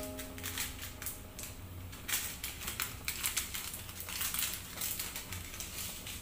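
Irregular crackling and clicking over a pot of beef soup at a rolling boil, as an ingredient is crumbled with the fingers into it, with a low steady hum underneath.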